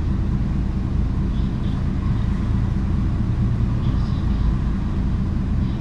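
Diesel engine of a Hino KC-HU2PMCE city bus running with a steady low rumble.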